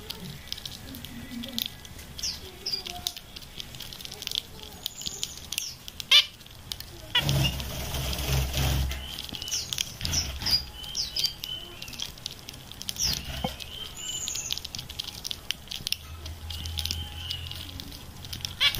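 Small cage birds eating: a patter of tiny clicks from seeds being pecked and cracked, with short high chirps scattered through. A brief rush of noise with a low rumble about a third of the way in.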